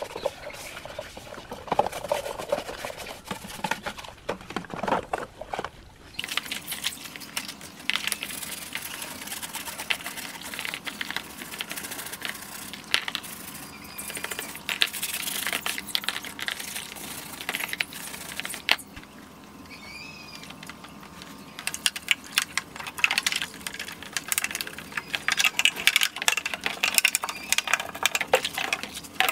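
Plastic fan parts being scrubbed by hand in a basin of soapy water: rubbing and scraping, water sloshing, and many small knocks of the plastic against the basin.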